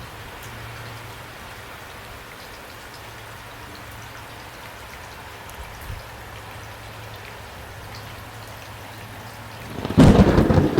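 Steady rain falling, with a sudden loud crash of thunder near the end.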